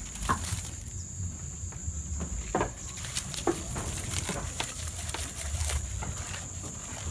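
Goats feeding on a hand-held branch of awar-awar (Ficus septica) leaves: irregular snapping and tearing of stems and leaves, with chewing and leaf rustle.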